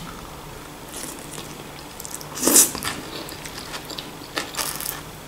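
Close-up eating of a forkful of oil-dressed lettuce salad: one louder crisp bite about halfway through, with soft chewing and small wet mouth clicks around it.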